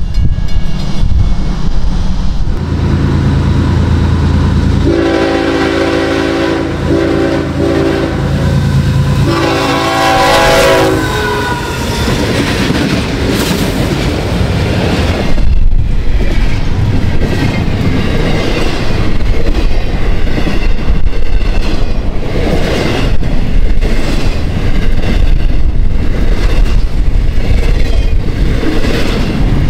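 Diesel locomotive approaching with its engine rumbling, then sounding its multi-tone air horn in several blasts. From about halfway on, the train's cars pass with a loud, steady clickety-clack of wheels over rail joints.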